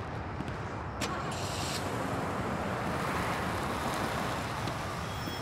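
Steady rushing background ambience with a short click about a second in.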